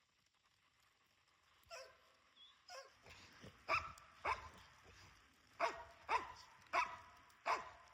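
A dog barking: about eight short barks, the first two faint, then louder ones coming mostly in pairs.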